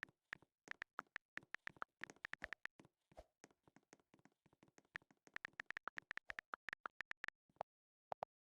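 Morse code being keyed: faint, fast, irregular runs of very short, sharp pips, all at one bright pitch, grouped in bursts with brief gaps. Near the end they thin out to a few spaced pairs.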